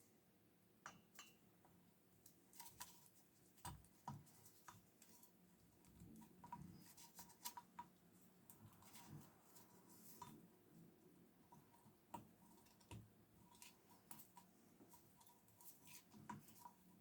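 Faint, scattered light clicks and taps of small metal engine parts being handled, as a Stihl 020T chainsaw's cylinder is worked down over the piston and rings.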